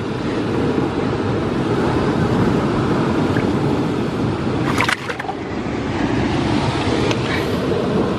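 Sea surf washing over the shore rocks, a steady low rushing noise, with one short sharp noise about five seconds in.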